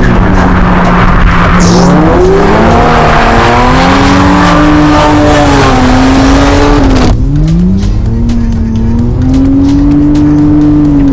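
Car engine revving up and down as it is driven hard on a dirt rally course, with tyre and gravel noise heavy for the first seven seconds. That noise drops away suddenly, leaving the engine's rise and fall.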